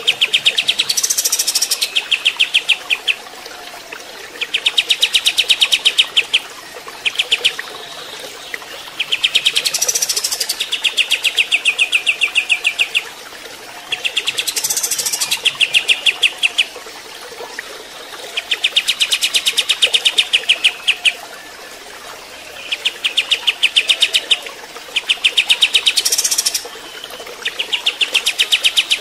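Olive-winged bulbul (kapas tembak) singing: repeated phrases of fast trilled notes, each one to two seconds long, coming every few seconds, some with a higher sharp note on top.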